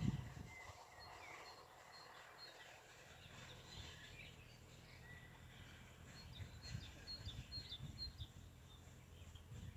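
Faint outdoor ambience with small birds chirping now and then, the chirps a little busier past the middle; a low rumble returns at the very end.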